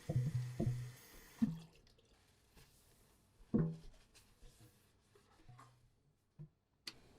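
Kitchen tap running into a sink, then shutting off about a second and a half in. Several dull knocks sound around it as things are handled in the sink: a cluster at the start, one as the water stops, and a louder one a couple of seconds later.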